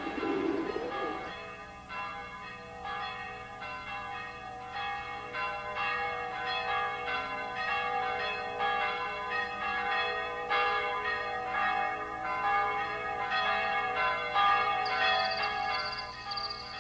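Church bells ringing, struck over and over so that their tones overlap and ring on. A thin, high, steady tone joins near the end.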